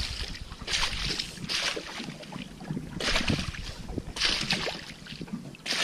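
Water splashing and lapping against a small boat in short hissing bursts, about one a second.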